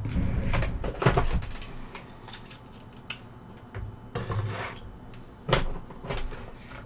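Knocks and clatter of tools and objects being picked up and set down on a workbench: a burst of handling noise at the start, then scattered knocks, the sharpest about five and a half seconds in.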